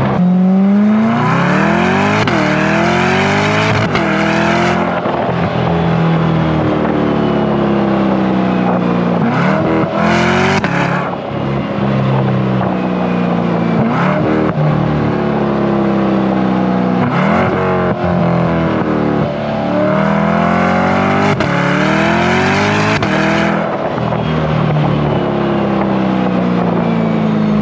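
Corvette C8 E-Ray's 6.2-litre V8 through a titanium sport exhaust, heard from a microphone at the rear bumper. It makes several hard pulls with quick upshifts: the pitch climbs and then drops at each shift, and the engine runs steadier between pulls.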